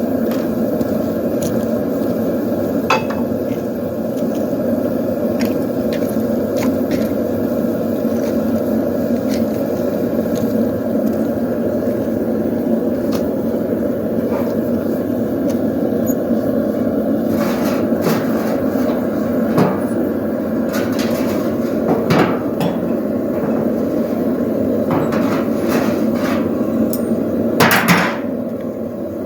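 Hammer blows on the back of a splitting axe set on the poleaxe head to split it into prongs, struck irregularly with pauses between, over a steady low roar.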